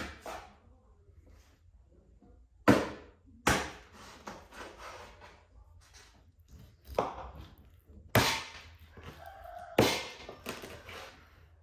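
Sharp knocks at irregular intervals, five loud ones, each dying away quickly, with quieter handling sounds between them.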